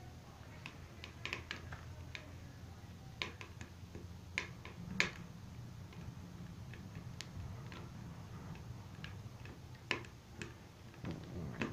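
Wood fire crackling inside a popcorn-tin wood stove: scattered sharp pops and snaps at irregular intervals, over a faint low hum.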